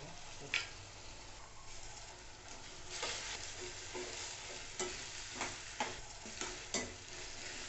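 Chopped tomatoes and onions sizzling in oil in a stainless steel kadai while a steel spatula stirs them. The spatula scrapes and clicks against the pan several times over the steady frying hiss.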